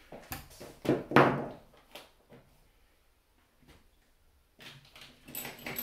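Handling knocks and thunks as an airsoft rifle is set down and moved on a tabletop, then a quiet stretch and, near the end, small clicks and light metallic clinks as a screwdriver and its bits are picked up.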